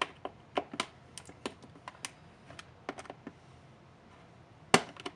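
Small screwdriver tip picking and prying at a plastic post joining the two halves of a toy boat's hull, giving irregular sharp clicks and ticks of steel on hard plastic. There is a pause past the middle, then the loudest click near the end. The post looks heat-staked, with plastic melted over so the halves won't come apart.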